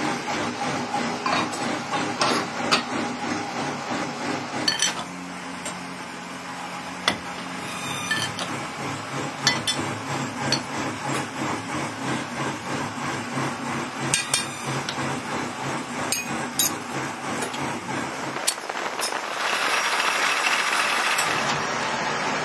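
Workshop machinery running with a steady rhythmic pulse, broken by sharp metal clinks and knocks as a stack of steel sprockets on a mandrel is handled and its nut is worked. Near the end a louder rushing noise comes in for about two seconds.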